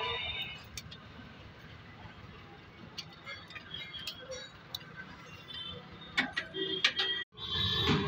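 Scattered sharp clicks and light metallic clinks, most between three and seven seconds in, with faint voices in the background.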